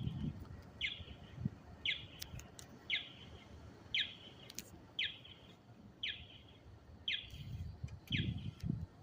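Alarm sounding a short falling chirp, repeated evenly about once a second.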